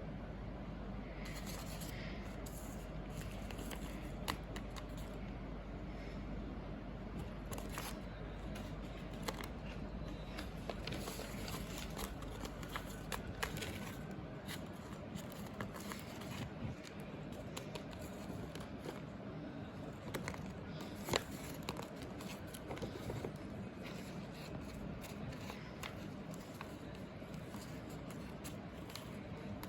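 Blind-bag packaging being handled and opened by hand: scattered crinkling, scraping and tearing with sharp little clicks, over a steady low hum.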